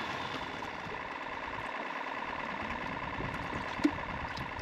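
Boat motor running steadily at idle, a low hum with a faint whine, with one short sharp click about four seconds in.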